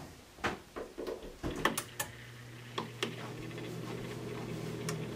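Amana bottom-freezer refrigerator powering up on its newly replaced electronic control board: a scatter of clicks over the first few seconds, then a steady low hum sets in about a second and a half in as the fridge starts running.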